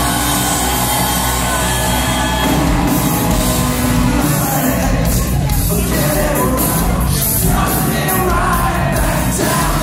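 Live rock band playing loudly in a concert hall, with a sung lead vocal over electric guitars, heard from within the crowd, whose shouts mix in.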